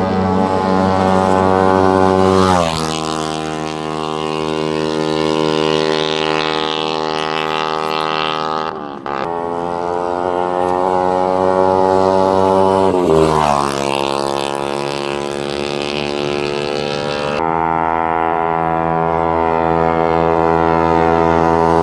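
Bajaj Pulsar NS 200's single-cylinder engine through a custom aftermarket exhaust, running at a steady pitch on the move. Its note drops sharply in pitch twice as the bike rides past.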